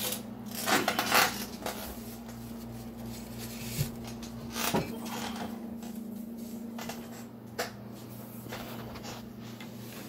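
Handling noise from a phone being moved about: scattered knocks and rubbing against the microphone, most of them in the first couple of seconds, over a steady low hum.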